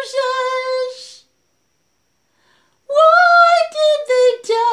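A woman's solo voice singing slow, drawn-out notes without accompaniment. It stops about a second in and starts again after a pause of nearly two seconds.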